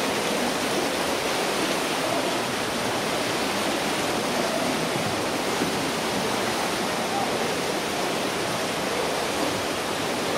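Fast, shallow stream rushing as white water through a narrow rock gorge: a steady, unbroken rush of water.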